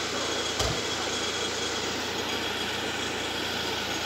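Mitsubishi Pajero II engine idling steadily, with a single thump about half a second in.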